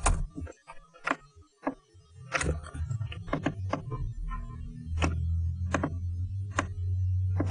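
Computer mouse clicks, sharp and irregularly spaced, about a dozen, as shapes are copied and their anchor points dragged, over a low steady hum that grows louder in the second half.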